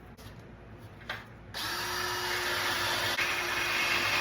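Power tool spinning a wire brush against a small metal hose-retaining clip to clean off rust. It starts about a second and a half in, runs steadily for nearly three seconds and then stops.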